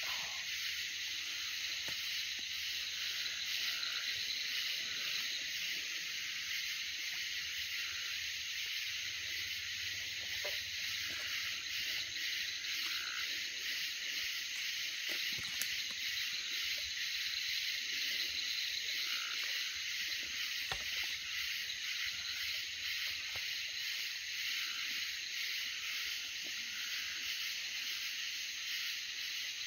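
Steady high-pitched chorus of night insects, crickets and katydids, a continuous buzz with a faster pulsing shimmer above it. A couple of faint clicks come through it.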